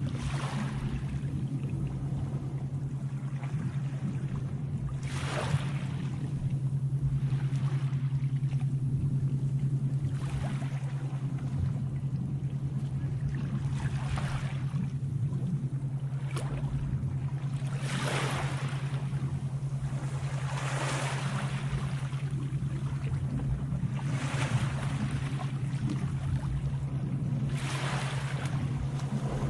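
Sea waves washing in about every three to four seconds, over a steady low hum.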